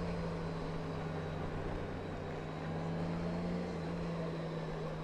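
Large 1800 cc touring motorcycle engine running at a steady cruising speed, a steady low drone, with wind noise rushing over it.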